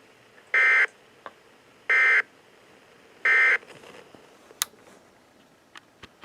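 Emergency Alert System SAME end-of-message signal: three short bursts of digital data tones, each about a third of a second long and a little over a second apart, marking the end of the alert. A few faint clicks follow over low hiss.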